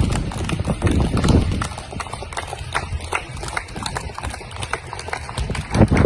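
A dense, irregular clatter of claps and knocks, typical of people clapping and striking plates, with bursts of low rumble from wind on the microphone near the start and the end.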